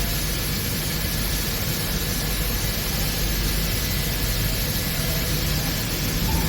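Wood CNC machining centre running: a steady hiss and low hum with a faint high whine, unchanging throughout.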